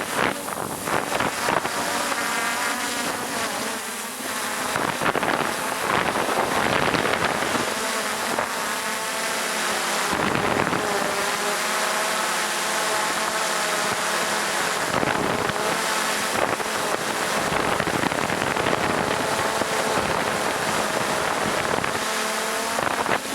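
Motor-driven propellers running steadily, their tone wavering up and down in pitch, under wind buffeting the microphone.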